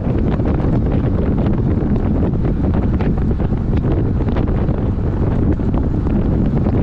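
Wind buffeting the microphone of a road bike riding at over 30 km/h: a loud, steady rushing rumble, with faint ticks scattered through it.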